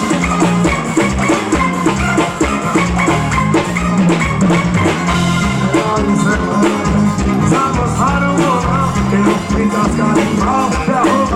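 Live forró band music played loud, with a steady drum beat, a bass line and a melody carried over it.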